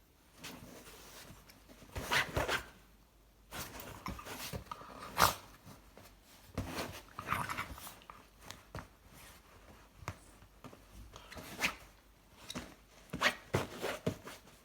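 A Shiba Inu puppy burping again and again: short, irregular burps at uneven intervals, the loudest about five seconds in.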